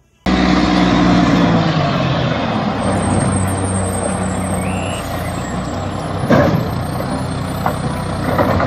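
Rear-loading garbage truck with its engine running steadily, and two short knocks about six seconds in and near the end.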